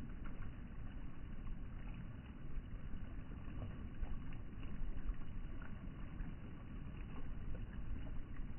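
Flash-flood river swollen by heavy rain, its water rushing by in a steady deep roar, with faint spatters on top.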